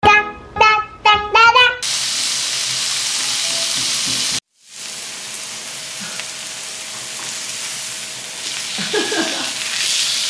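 Pork belly and sausages sizzling on a built-in tabletop grill, a steady hiss that drops out briefly about four seconds in and then carries on a little quieter. It opens with a short high-pitched jingle.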